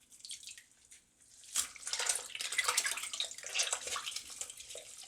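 Water running and splashing in a sink as a kitten is washed, starting about a second and a half in after a quieter stretch of faint drips.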